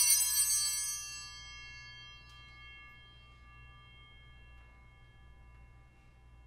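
A bell struck once, ringing loudly and then slowly fading to a faint lingering tone. It is the bell marking the elevation of the cup at the words of institution.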